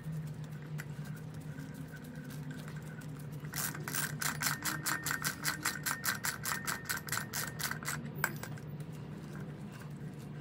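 Socket ratchet wrench clicking in a fast, even run of clicks for about four seconds in the middle, as it spins a sprocket bolt down on a motorcycle rear wheel, with a few single clicks before and one sharper click after. A steady low hum runs underneath.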